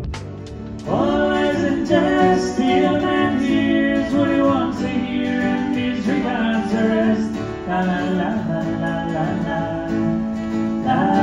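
Live acoustic duo: a man and a woman singing to acoustic guitar, the singing starting about a second in after a few softer plucked notes.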